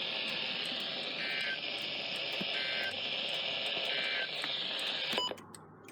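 NOAA Weather Radio receiver hissing with reception static, broken by three short two-tone SAME digital data bursts about 1.4 seconds apart. Each burst is short enough to be the end-of-message code that closes an alert test. The hiss cuts off suddenly about five seconds in as the broadcast drops.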